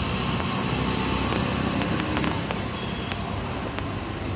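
Steady road-vehicle engine and street noise, with a few light clicks around the middle.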